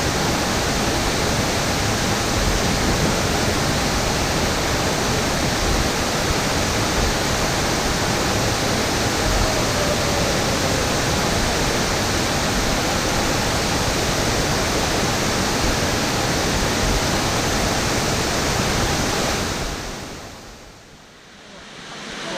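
Fukuroda Falls, a large waterfall, giving a steady loud rush of falling water that fades out near the end.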